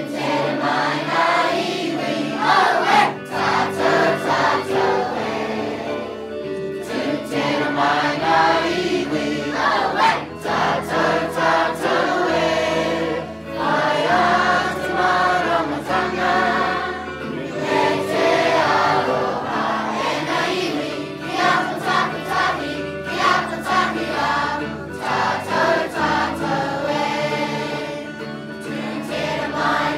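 A large group of adults and children singing a waiata together, the supporting song after a speech in a pōwhiri, with guitar accompaniment holding steady low chords beneath the voices.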